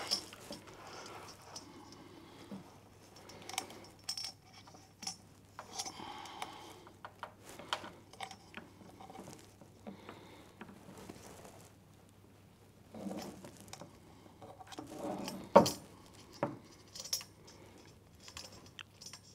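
Wire hanger and its clip being handled and fitted to a finned metal heatsink: scattered small clicks, taps and light metallic rattles, with one louder knock about fifteen seconds in.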